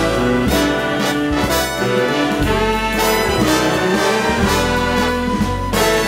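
Jazz big band playing an instrumental introduction, the brass section of trumpets and trombones to the fore in full, held chords over a moving bass line. Strong new chord attacks come about halfway through and again near the end.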